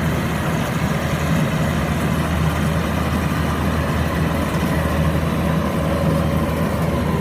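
Kubota DC-93 combine harvester's engine running steadily while it cuts rice, a continuous low drone.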